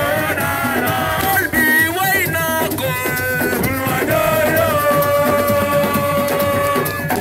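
Music with a singing voice over drums and instruments; a long held note comes in about four seconds in.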